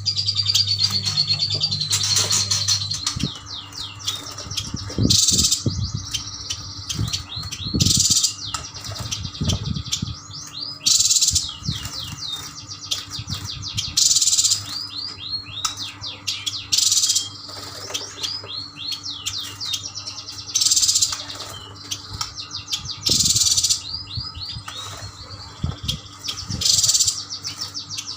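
Chestnut-crested yuhinas chattering in quick runs of high, rising chirps. A loud harsh, buzzy burst comes every two to three seconds.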